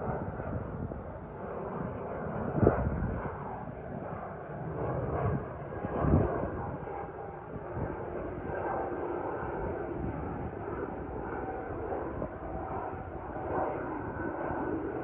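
Jet noise from a departing Embraer E195-E2 airliner: its two Pratt & Whitney PW1900G geared turbofans run at takeoff thrust as a steady roar. A faint steady whine sits in the roar from about halfway through.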